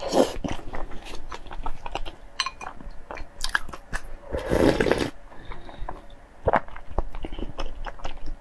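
Close-miked chewing with wet mouth clicks and smacks. About halfway through comes a slurp of broth drunk straight from the bowl.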